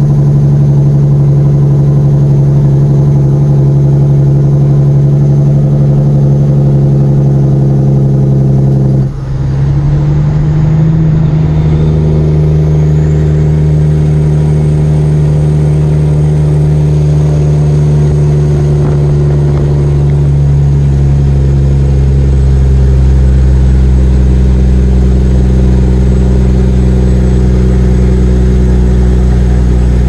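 Caterpillar diesel engine of a loaded Peterbilt log truck running steadily under way, heard from inside the cab. About nine seconds in the sound dips briefly and the engine note comes back slightly higher, and the deep low rumble grows stronger later on.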